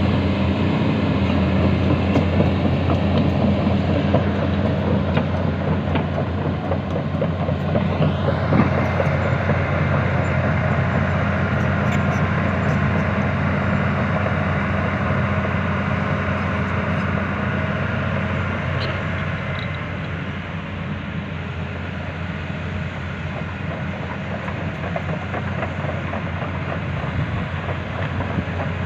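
Hydraulic excavator's diesel engine running steadily with a deep drone and mechanical clatter, easing slightly about two-thirds of the way through.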